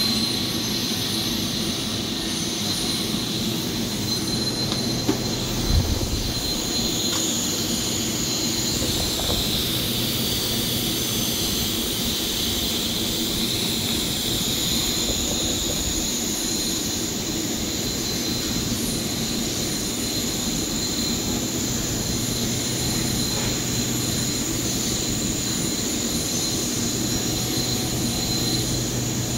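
TIG welding arc on a carbon steel pipe joint, hissing steadily over a constant workshop hum with a thin high whine, and a brief knock about six seconds in.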